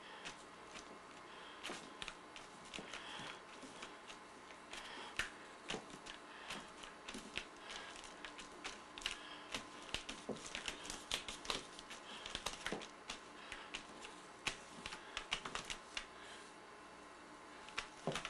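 Fingertips dabbing paint onto a canvas: irregular light taps and clicks, some in quick flurries, thickest in the middle stretch.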